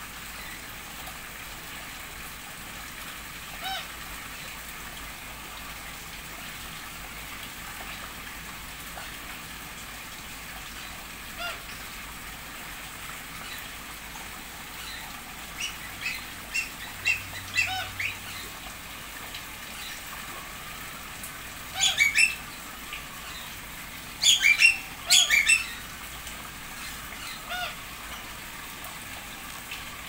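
Aviary birds giving short chirping calls, scattered at first, then in quick runs in the second half, with the loudest clusters near the end. Under them runs a steady hiss of water from the pond's rock-wall water feature.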